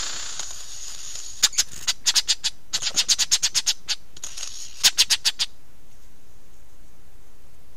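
Lyrebird calling at close range: three runs of sharp, rapid clicking notes, about six a second, stopping short after about five and a half seconds.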